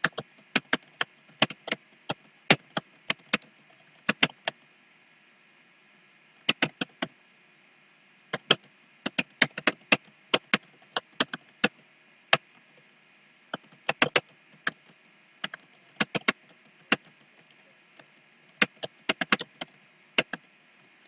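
Computer keyboard keys clicking as a sentence is typed, in quick irregular runs broken by short pauses, the longest about five seconds in.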